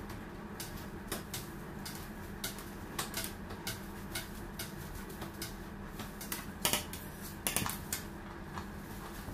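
Long serrated cake knife scraping the browned crust off a round sponge cake: a run of irregular, scratchy clicks, loudest about seven seconds in, over a steady low hum.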